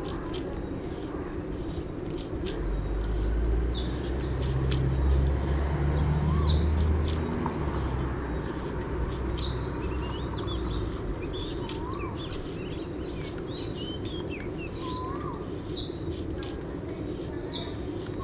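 Small birds chirping repeatedly in short sweeping calls over a steady low hum, with a deeper rumble swelling up and fading away a few seconds in.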